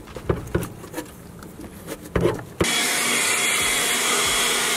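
A cloth rag wiping over a metal battery tray, with a few light knocks. About two and a half seconds in, an electric air blower starts and blows steadily, a loud hiss with a thin high whine.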